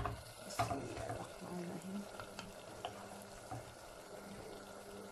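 Fried tinda slices being scraped from a frying pan into a clay pot of meat curry. There is a sharp scrape or click about half a second in, then a few light clicks of the spoon, over a faint sizzle.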